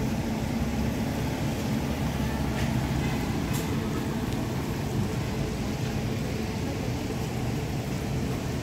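Coach bus diesel engine running with a steady low rumble as the bus creeps forward at walking pace.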